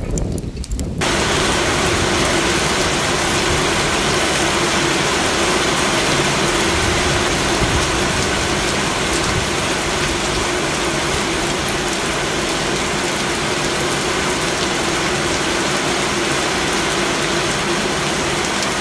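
Heavy rain pouring steadily, starting suddenly about a second in.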